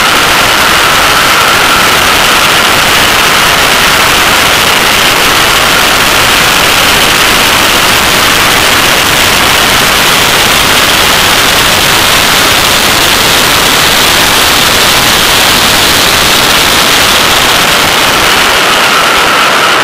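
Loud, steady rush of wind and road noise on a camera mounted outside a Porsche 911 at track speed, largely burying the flat-six engine. A thin high tone fades soon after the start and comes back near the end.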